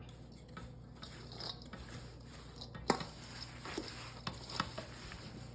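A spoon stirring mincemeat filling of chopped apples and dried fruit in a mixing bowl: faint scraping and light clinks, with one sharper click about three seconds in.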